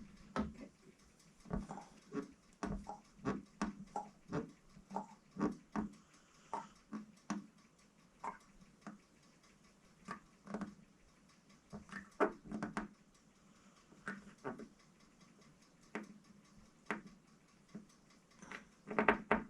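Irregular light clicks and taps, one or two a second, of a door knob being screwed onto a bi-fold door by hand.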